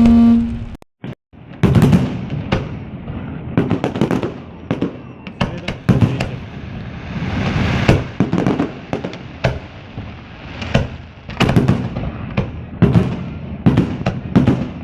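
Fireworks display: aerial shells bursting in quick, irregular succession, many sharp bangs with echoing tails. A held electronic tone cuts off under a second in, followed by a brief dropout, before the bangs begin.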